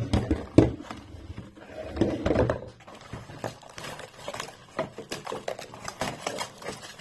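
Hard plastic toy-blaster parts being handled, with a run of irregular clicks, knocks and light rattles; a short vocal sound or two early on and about two seconds in.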